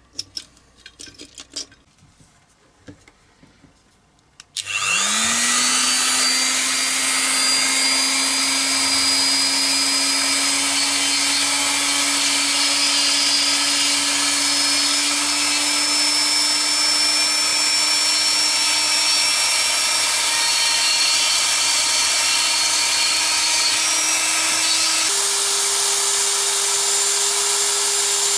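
A few light clicks from handling a silicone mould, then a Dremel rotary tool spins up about four and a half seconds in and runs at high speed, grinding a small clear plexiglass rear-window piece. Its pitch creeps slowly upward and steps higher near the end.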